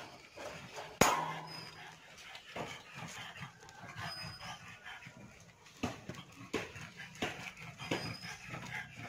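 Metal wire cage door clanks sharply once, about a second in, as it is opened. Rustling follows, with a run of short, evenly spaced knocks or thuds in the second half.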